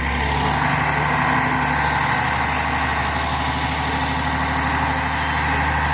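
Heavy construction machine's diesel engine running steadily at a low, even speed.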